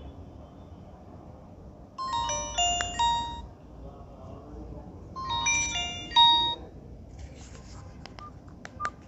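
A Nokia feature phone's small speaker plays two short bursts of electronic melody in quick stepped notes, each about a second and a half long, a few seconds apart. A few sharp clicks follow near the end.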